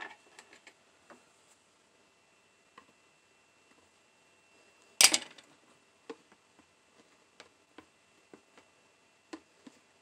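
Handling of a plastic tub of PCB etchant: one sharp knock about halfway through, with light scattered clicks and taps before and after it.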